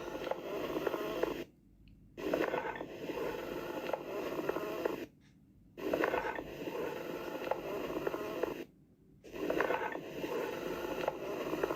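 Recorded amphoric breath sound as heard through a stethoscope: a hollow, somewhat high-pitched breathing noise, the sign of an open pneumothorax or a tubercular cavity. It comes in four stretches of about one and a half to three seconds, with brief silences between them.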